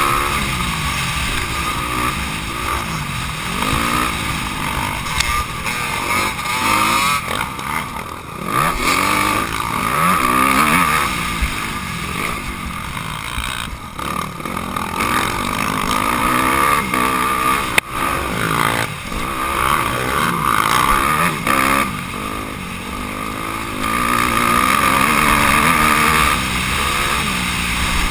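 Honda CRF250R's single-cylinder four-stroke motocross engine, heard from a camera mounted on the bike, revving up and down again and again while racing. A single sharp knock comes about eighteen seconds in.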